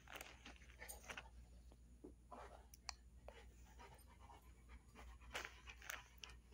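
Large dog panting faintly, in short irregular breaths with small clicks between them.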